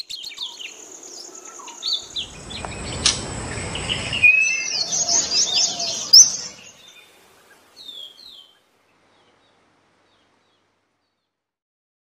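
Songbird chirping and whistling in quick high notes, with a rushing noise behind the calls for a couple of seconds. The calls are loudest in the middle and end in a few faint chirps.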